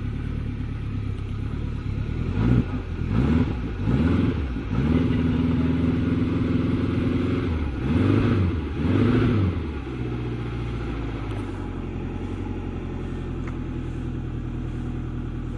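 Subaru EJ25 2.5-litre quad-cam flat-four, newly fitted in a VW T3 van, running after its first start. It is blipped several times starting about two seconds in, held at higher revs for a couple of seconds, and blipped twice more before settling back to a steady idle about ten seconds in.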